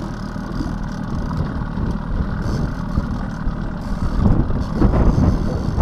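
Boat's outboard motor running steadily at low trolling speed, mixed with wind rumbling on the microphone; it gets slightly louder about four seconds in.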